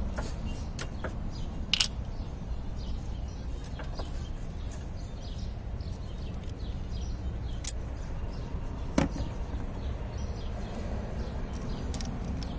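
Scattered sharp metallic clicks and clinks of hand tools, about seven in all, the loudest near 2, 8 and 9 seconds in, some ringing briefly at a high pitch, over a steady low background rumble.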